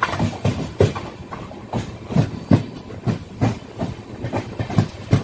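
Train wheels clattering over rail joints and points as the train pulls out of the station: irregular sharp knocks, a few a second, over a steady running rumble.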